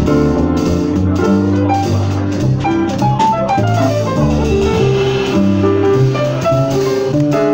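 Live jazz combo playing: upright double bass walking in steady low notes under a drum kit, with a keyboard playing melodic lines above.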